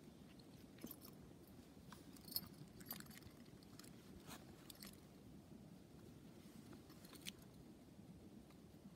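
Faint handling noise from a leather-and-beaver-fur sack: scattered soft clicks and rustles as the hide is gripped and its lace and metal ring are worked, with one sharper click about two and a half seconds in.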